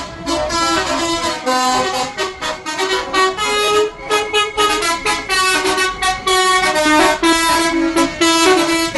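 Telolet bus horns playing quick melodies of short, jumping notes, several buses answering one another with overlapping tunes.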